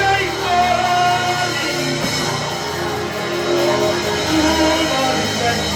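Live gospel worship music with a band, guitar and held sung notes, at a steady loud level.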